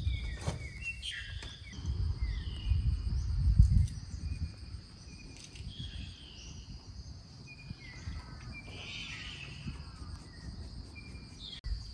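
Steady high-pitched insect drone with scattered short bird chirps, over a low rumble that is loudest a few seconds in.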